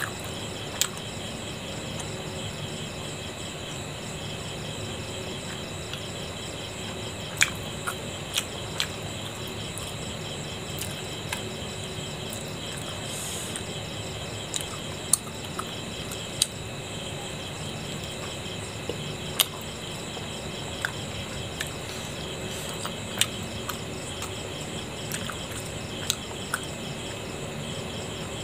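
Wet, sharp mouth clicks and smacks now and then from someone chewing big steamed momos, over a steady pulsing chirr of crickets.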